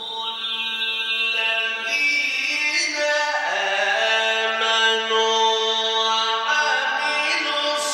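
A male Quran reciter chanting in the Egyptian tajweed style: one long melismatic held note, the voice sustaining and bending its pitch in steps without forming clear words. It swells over the first couple of seconds.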